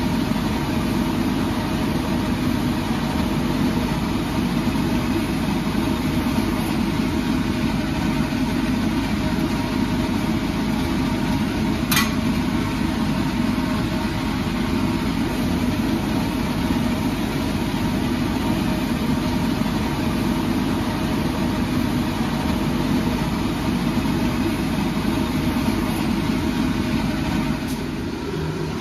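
Coal forge being fired, with air driven through the fire: a steady rushing drone with a faint hum in it, and one sharp click about twelve seconds in.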